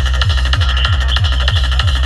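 Hi-tech psytrance from a live electronic set: a fast, steady kick drum, each beat dropping in pitch, with a rolling bassline between the beats and layered synths above.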